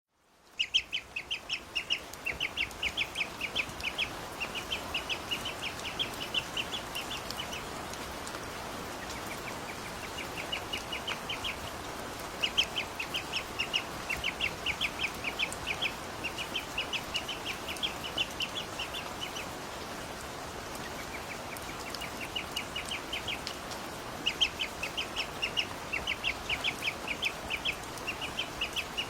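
Ducklings peeping in quick runs of high chirps, with a few short pauses between runs, over a steady hiss of rain.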